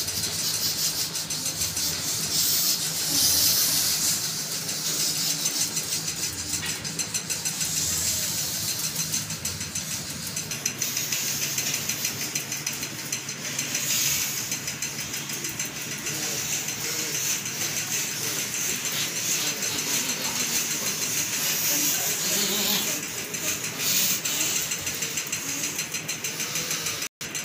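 A group of people doing forceful pranayama breathing through the nose, one nostril held closed: a steady hissing rush of many overlapping breaths.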